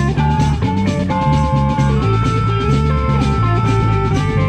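Live blues-rock band playing through PA speakers: electric guitars with sustained notes over a drum kit and bass line.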